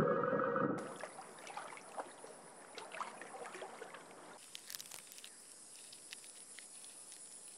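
Background music ends about a second in, giving way to faint rainforest ambience: a steady high-pitched insect drone with scattered small clicks and ticks.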